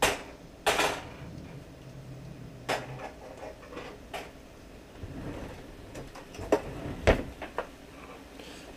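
Kitchen handling noises at a stove: scattered clicks and clinks of metal tongs and a frying pan, with a short scraping rush about a second in and a sharp knock about seven seconds in.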